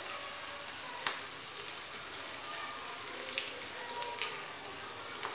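Vegetable Manchurian balls deep-frying in hot oil in a steel kadhai: a steady sizzle with a few small crackles.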